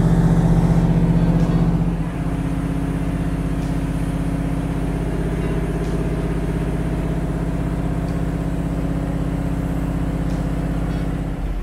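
Canal commuter boat's engine running steadily under way, a little louder for the first two seconds, then easing slightly to a steady hum.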